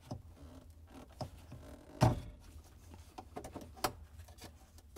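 Quiet handling noise as a plastic evaporator fan blade is worked off its motor shaft by a gloved hand, with one sharp knock about two seconds in and a few light clicks near the end.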